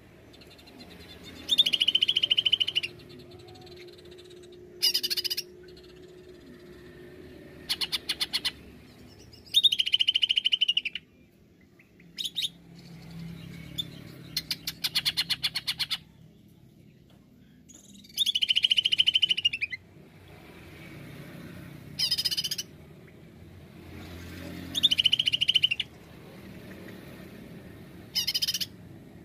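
Greater green leafbird (cucak ijo) singing in loud separate phrases every few seconds: roughly one-second calls built on a strong high whistled note, alternating with short bursts of rapid ticking.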